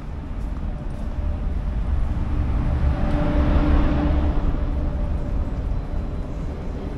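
Wind rumbling on the microphone on a ship's open deck. A hissing machine hum with a steady low tone swells up about three seconds in, then fades.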